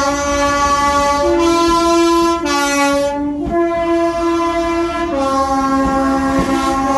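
Two-tone train horn sounding its two notes in turn, low, high, low, high, low, each note held about a second or more.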